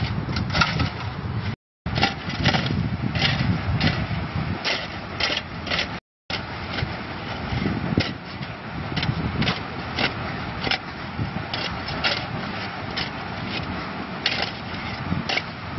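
Shovels scraping into river gravel and stones clattering, in a run of quick, uneven strikes over a steady low rumble. The sound cuts out completely twice, briefly.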